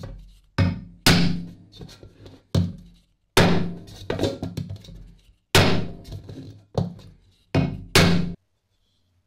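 Dents in a thin aluminium lamp reflector being knocked out with a black plastic punch over a plastic concave anvil: about nine sharp blows at uneven spacing, each leaving the aluminium briefly ringing. The blows stop suddenly near the end.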